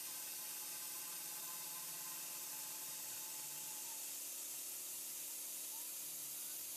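Small CNC mill thread-milling the inside of a brass ring: a steady hiss with a faint high tone under it.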